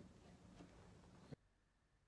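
Near silence: faint room tone with a low hum and a few faint ticks, dropping abruptly to dead silence about a second and a half in.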